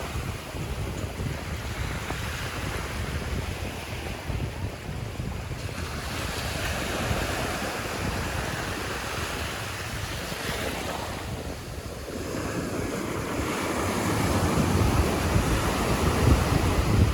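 Surf washing onto a beach, with wind buffeting the microphone in a low rumble. The wash swells about six seconds in, eases briefly, then builds to its loudest near the end.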